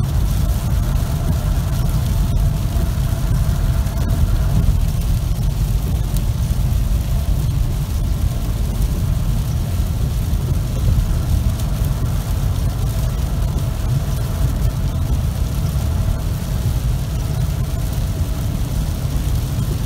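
Steady road noise inside a car driving on a highway in heavy rain: a low rumble of engine and tyres on wet pavement under a constant hiss of rain and spray.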